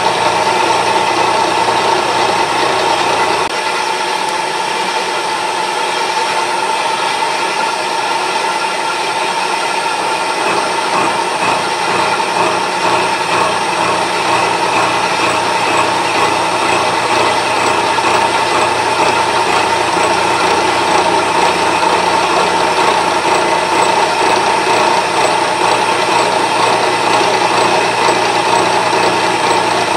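Milling machine running, its gear cutter cutting teeth into a gear blank on a dividing head: a steady machine sound with a strong held tone, its low hum dropping away a few seconds in. The cut suffers from what the machinist takes for a fairly dull cutter and a dividing head that is not locking properly.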